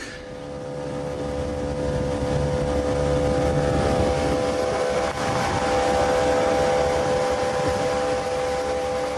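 Tohatsu 25 hp outboard motor running steadily at cruising speed with the hull moving through water, a steady even hum over rushing wind and water noise. It rises over the first couple of seconds and then holds.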